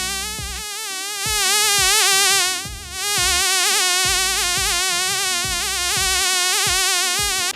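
A loud, continuous buzzing whine like a mosquito's, its pitch wavering quickly and evenly, with soft low thumps underneath; it dips briefly a little before halfway and cuts off suddenly at the end.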